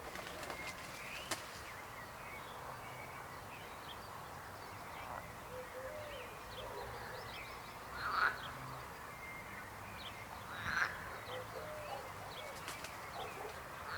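Chorus of frogs croaking, a steady dense din of overlapping calls. Three louder calls stand out, about eight seconds in, about eleven seconds in, and at the very end.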